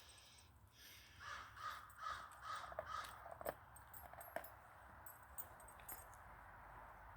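Faint bird calls: a quick series of short, repeated calls from about a second in, over a low steady hiss.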